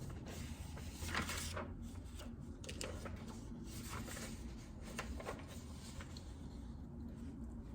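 Typing on a JJK84 mechanical keyboard with Outemu Silent Peach linear switches: keystrokes at an irregular pace, with a brief rustle about a second in.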